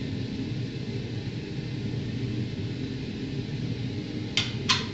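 Two sharp metallic clinks close together near the end, the second ringing briefly: something knocking the rim of a stainless steel stockpot. Under them is a steady low rumble.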